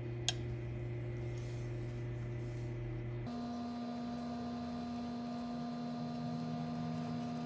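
Steady background hum of a few held tones, which changes abruptly to a different hum about three seconds in, with one short sharp click just after the start.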